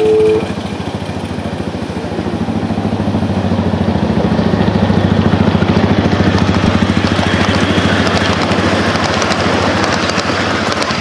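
Small engine of a ride-on miniature diesel-style locomotive running steadily, growing louder from about two seconds in as it comes close with its riding cars. A steady two-note horn tone cuts off just after the start.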